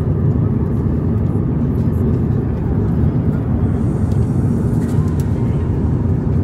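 Jet airliner cabin noise in flight: a steady, even low roar heard from inside the passenger cabin.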